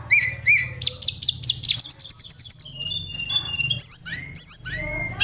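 Oriental magpie-robin (kacer) singing a loud, varied song: whistled slurs, then a rapid run of repeated high notes about a second in, followed by clear held notes and rising-and-falling phrases.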